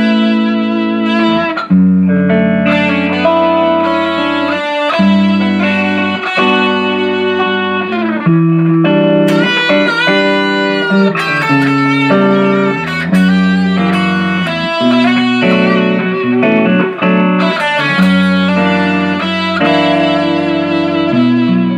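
Electric guitar fitted with a Floyd Rose FRX tremolo being played: held notes and chords that change every second or two, with a few pitch bends near the middle.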